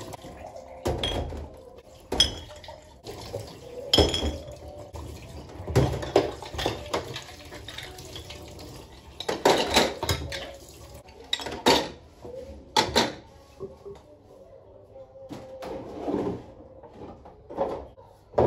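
Washed glass jars and their metal lids being set down on a stainless-steel draining tray, giving irregular clinks and knocks of glass on metal, a dozen or so over the stretch.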